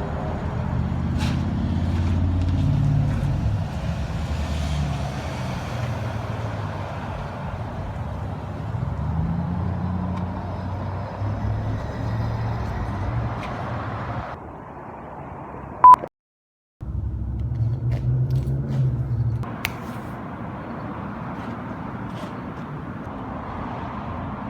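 Car engine and road noise while driving, the engine note shifting in pitch now and then. About 16 s in there is a brief beep, then an abrupt half-second of dead silence where the audio is cut, before the driving sound resumes.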